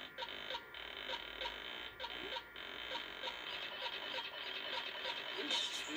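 Rapid, evenly spaced electronic beeping, a little over three beeps a second, heard through a TV speaker.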